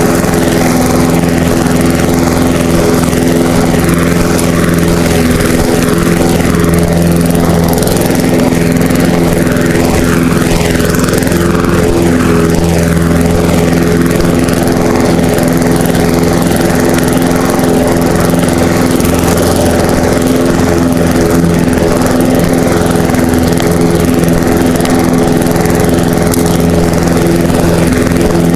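Gasoline lawn mower engine running steadily, loud and close, with an unchanging pitch.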